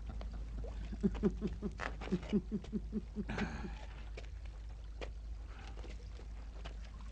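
A man laughing in a quick run of short chuckles, ending in a breathy burst.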